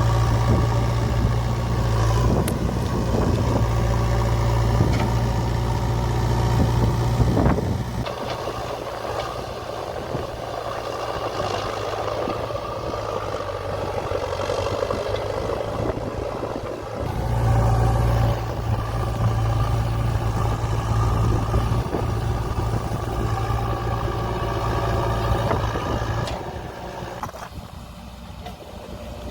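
JCB 3DX backhoe loader's diesel engine, stuck in pond mud, running hard in two long spells of heavy revving, the first for about eight seconds and the second from about 17 to 26 seconds. Between and after these spells it eases back to a lighter run.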